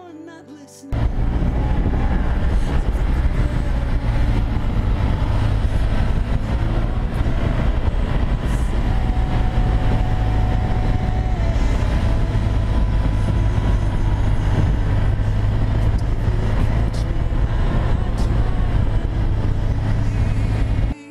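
A motorcycle's engine running on the move, heard through heavy wind rush on an onboard microphone. It starts abruptly about a second in, after a moment of music, and cuts off at the end.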